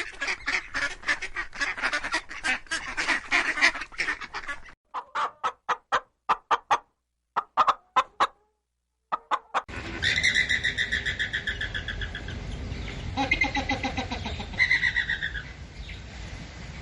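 Birds calling in several back-to-back recordings: a dense run of rapid calls, then a few separate short calls with gaps, then from about ten seconds in a new run of fast, pulsed calls.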